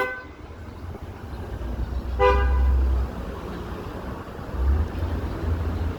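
Car horn honking in street traffic: a toot that ends just after the start and a short toot about two seconds in, over the low rumble of passing traffic.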